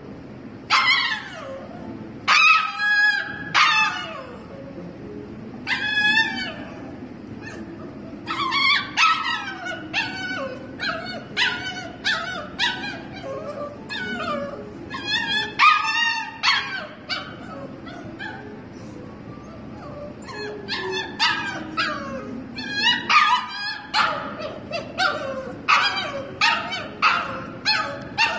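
Siberian husky puppy whining: a long series of high, pitch-bending cries in runs of closely spaced calls with short pauses between, the cries of a penned puppy wanting to be let out.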